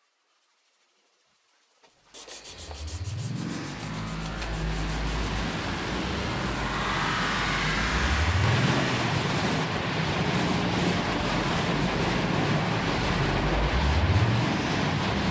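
Near silence, then about two seconds in a motor vehicle's engine comes in loudly and runs over a steady rushing noise. Its pitch rises three times, as when accelerating through the gears.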